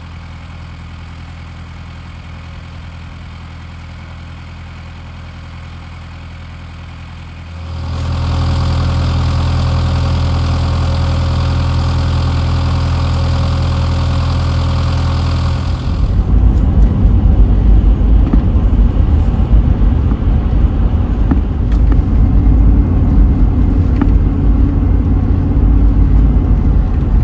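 Engine running steadily. About eight seconds in it gets much louder, and from about sixteen seconds on it becomes a louder, rougher rumble.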